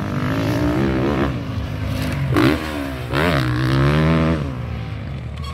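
Enduro dirt bike engine revving up and down as the rider works the throttle through a turn, the pitch rising and falling with sharp swoops about two and a half and three seconds in.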